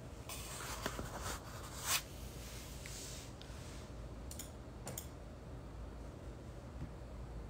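Handling noise from the phone: a few soft clicks and rustles in the first two seconds, the loudest about two seconds in, then two short clicks around four and five seconds, over a low steady room hum.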